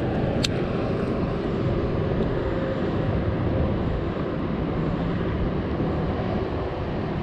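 Steady wind rumble buffeting the microphone, with a faint steady hum underneath and a single sharp click about half a second in.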